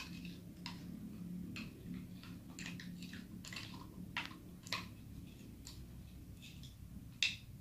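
Light, irregular taps and clicks as a small plastic jar is tipped and shaken to pour crushed Oreo crumbs into plastic popsicle molds. A slightly sharper knock comes near the end.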